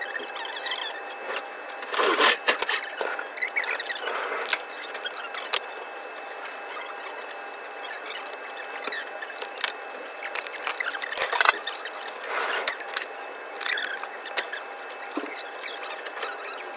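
Kitchen work sounds: scattered clicks, knocks and squeaks of metal trays, plastic tubs and utensils being handled, over a steady faint hum. There are louder bursts of clatter about two seconds in and again around eleven to twelve seconds.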